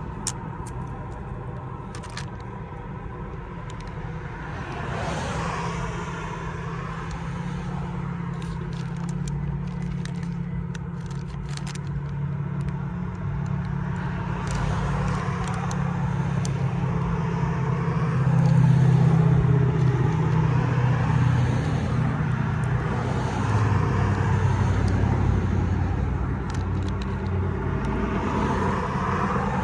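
A motor vehicle engine runs as a steady low rumble that swells louder around the middle, with scattered light crackles and clicks over it.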